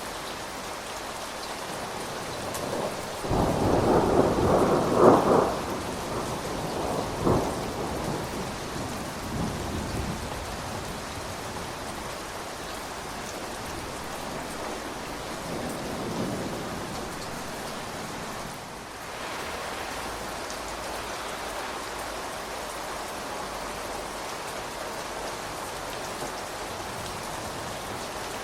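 Steady rain falling, with a thunderclap about three seconds in. The thunder rumbles and cracks for several seconds, then fades, and a fainter rumble comes back about halfway through.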